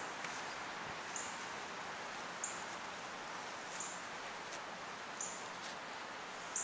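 Outdoor ambience: a steady hiss of air and leaves, with a short, very high chirp from a small animal repeating evenly about every second and a quarter, five times.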